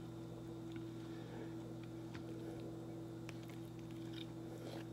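Quiet room with a steady low hum and a few soft, sparse clicks of a metal fork against a plate.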